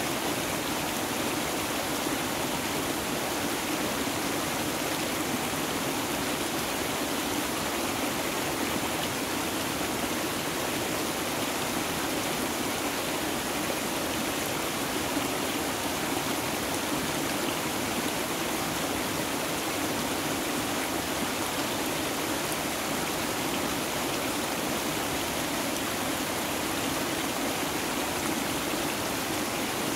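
Running water rushing steadily, an even, unbroken sound.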